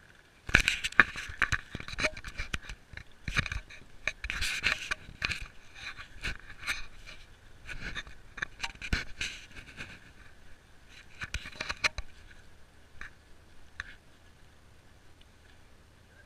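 Scraping, scratching and sharp clicks from an action camera being handled and moved about, knocking and rubbing close against its microphone; busiest for the first twelve seconds, then a few scattered clicks.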